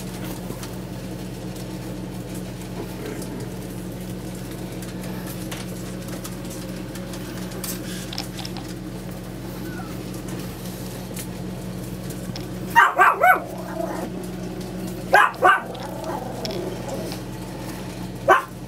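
Chihuahua puppies barking in short, high yips: three quick barks about two-thirds of the way in, two more a couple of seconds later, and a single one near the end, over a steady low hum.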